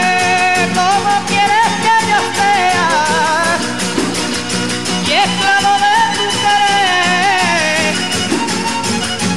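Andalusian folk music from Málaga: a held, wavering melody line over a quick, steady strummed and percussive beat, an instrumental stretch between sung verses.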